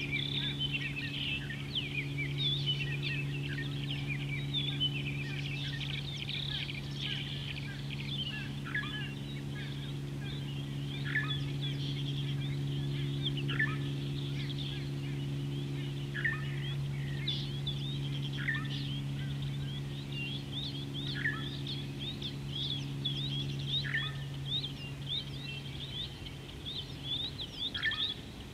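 A chorus of birds chirping and twittering, with one bird repeating a short falling note about every two and a half seconds. Under it runs a steady low hum that stops near the end.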